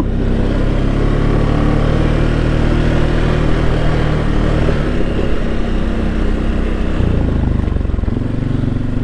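Can-Am Outlander 700 ATV engine running while riding along a trail, its engine note changing a few times as the throttle varies.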